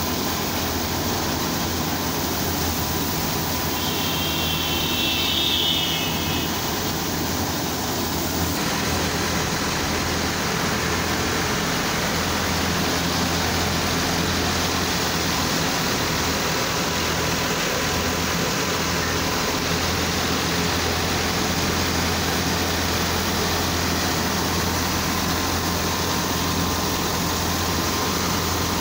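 Tractor-driven wheat thresher running: a Massey Ferguson 375's diesel engine turning the thresher's drum through a shaft, a loud, steady, unbroken machine din with a low hum.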